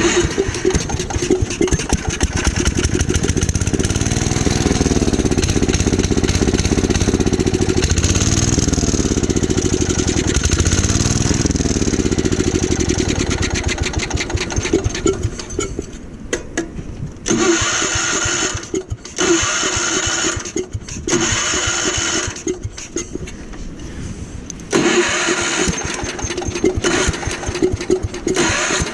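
Gravely Commercial 12 tractor engine running, its speed rising and falling over the first half. It then surges and drops out in uneven bursts before picking up again near the end.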